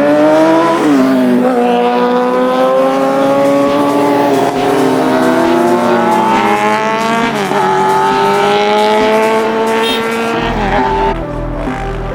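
Sport motorcycle engine accelerating hard through the gears, its pitch climbing and then dropping sharply at each upshift, about four times. Near the end the engine fades out under background music.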